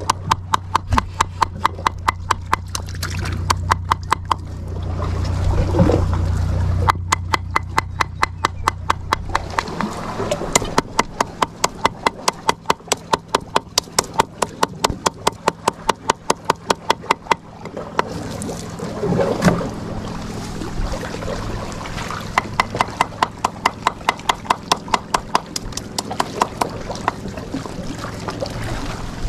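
Knife chopping fish bait on a wooden board for chum, in fast even chops about three a second, in runs with short pauses. A low steady hum runs underneath for about the first third.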